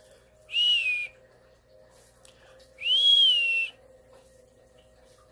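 A person whistling twice: a short high whistle that dips slightly in pitch, then, about two seconds later, a longer one that rises and falls.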